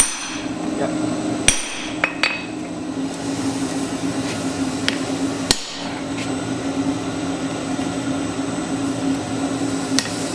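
A few sharp, ringing hammer blows at the anvil on hot iron, struck at irregular intervals over a steady low hum.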